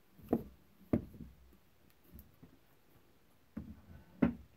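Sharp knocks and clunks of wood and tools handled on a workbench: a cordless drill set down and a board seated and clamped in a pocket-hole jig. Two knocks come in the first second and two more near the end, the last the loudest. No drill is running.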